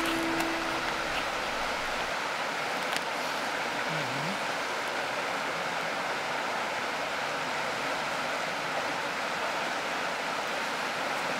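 River current rushing steadily over shallow riffles, with a faint click about three seconds in.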